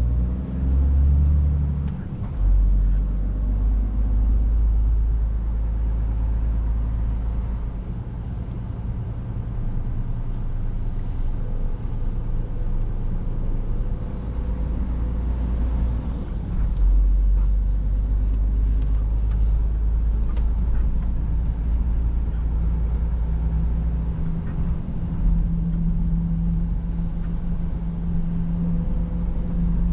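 Scania S460 truck's 13-litre straight-six diesel and road noise heard from inside the cab while driving: a steady low drone whose pitch steps up or down a few times as the engine speed changes.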